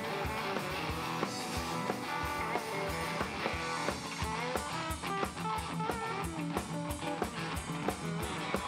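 Live band playing: two electric guitars over upright bass and a drum kit, with a steady beat.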